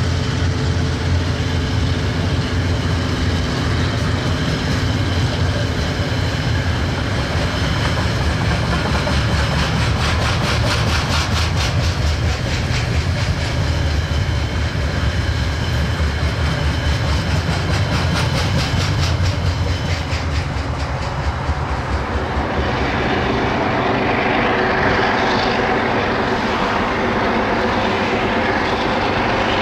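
KiwiRail diesel-electric freight locomotive working under load: a heavy, steady engine throb that fades about twenty seconds in, giving way to the rolling clatter of freight wagons going by.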